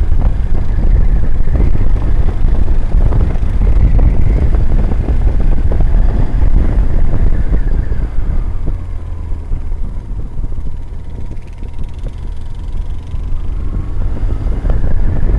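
Wind rushing and buffeting over a helmet-mounted camera on a moving motorcycle, with the bike's engine running underneath. About halfway through the wind eases for several seconds and a faint engine whine comes through, then the wind noise picks up again near the end.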